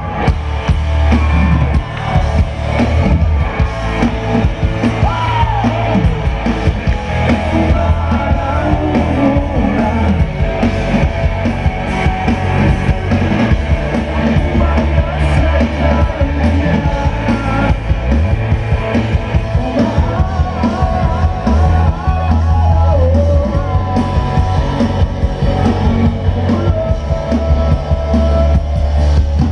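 Rock band playing live, with a male singer's voice over guitar, drums and heavy bass.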